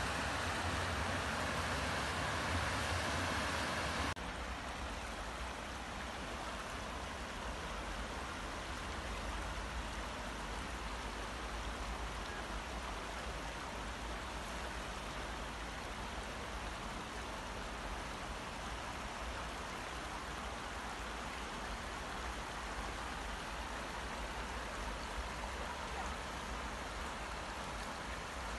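Steady rushing of running water, changing abruptly to a quieter, more even rush about four seconds in.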